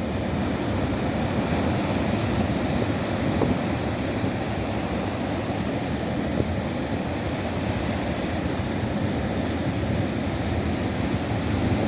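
Ocean surf: waves washing in a steady, continuous rush.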